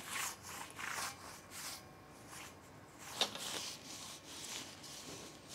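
Faint rustling and scuffing as galvanized steel rack uprights and parts are handled, with a light tap about three seconds in.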